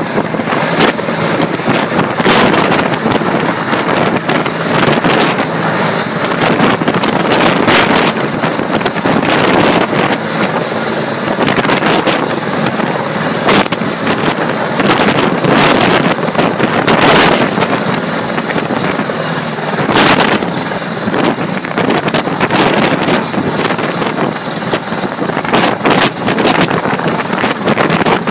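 Sikorsky CH-53 heavy-lift helicopter running loudly and steadily, a dense rush of rotor and engine noise with a steady high whine and brief surges.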